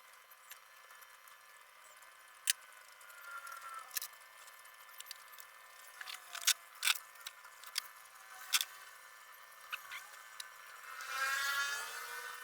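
Hands working the metal parts of an airgun: a series of sharp clicks and taps, a short squeak about three seconds in, and a longer, louder squeak near the end.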